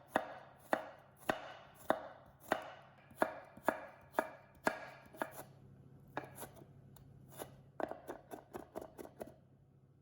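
Kitchen knife chopping food on a cutting board: steady strokes about two a second, a short break about halfway, then a quicker run of strokes near the end.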